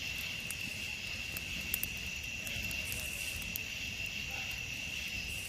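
Night insect chorus trilling steadily on one high pitch, with a few faint ticks.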